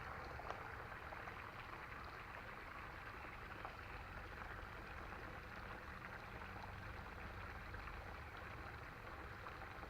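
Faint steady running water of a small creek, with a single light tick about half a second in.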